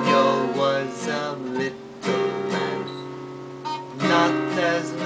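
Acoustic guitar strummed in chords that ring on, with a man singing over it; fresh strums come about two seconds in and again about four seconds in.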